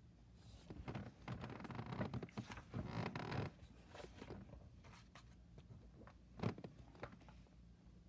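A red folder and its papers being handled: about three seconds of rustling and scraping, then scattered light clicks and a single sharp knock about six and a half seconds in.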